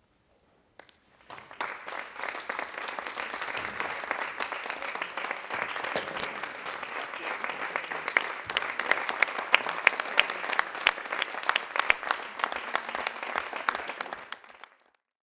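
Theatre audience applauding. It starts about a second and a half in, has single sharp claps standing out in the second half, and cuts off near the end.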